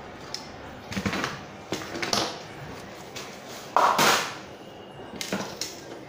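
Handling noises from spare parts in clear plastic packaging: several short rustles and light clicks, the loudest and longest rustle about four seconds in, as a replacement charging connector is taken out and the phone board is handled.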